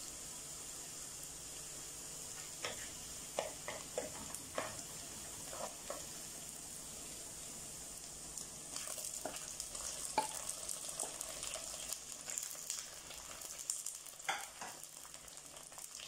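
Shallots, garlic, ginger and green chillies sizzling in hot coconut oil in a clay pot, with scattered knocks of a wooden spoon. From about nine seconds in, tomato pieces go into the oil and the sizzling grows denser and crackles as they are stirred.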